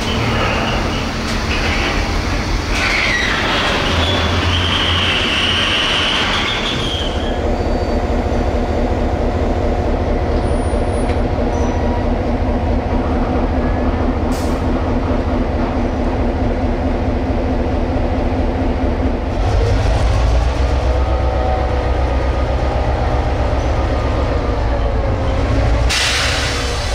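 NOHAB MY-class diesel-electric shunting locomotive, with its EMD two-stroke V16 engine, running as it moves a train of wagons. A high metal squeal from the moving wagons is heard for a few seconds early on. After it comes a steady, many-toned engine drone that grows louder and deeper from about two-thirds of the way through as the locomotive comes close.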